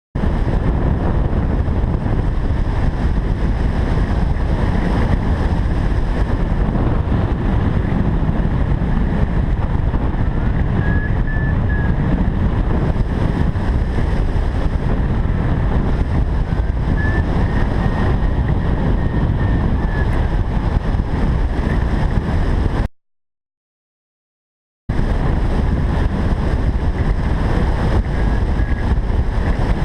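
Steady rush of wind buffeting the microphone of a hang glider in flight. It drops out completely for about two seconds about three quarters of the way through.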